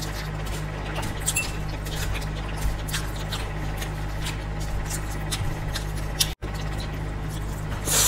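Close-miked eating sounds: noodles slurped and chewed, with wet mouth smacks and clicks, over a steady low hum. The sound cuts out completely for a moment about six seconds in.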